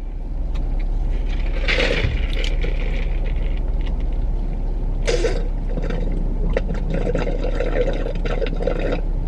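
Drink being sucked up through a straw from a fast-food cup, slurping and gurgling steadily with small crackles, louder and more bubbly in the second half.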